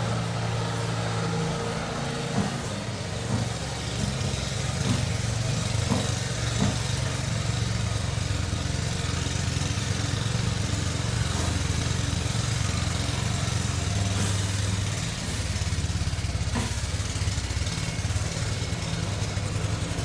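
Snow blower running steadily with a low hum, with a few faint knocks and a short drop in level about fifteen seconds in.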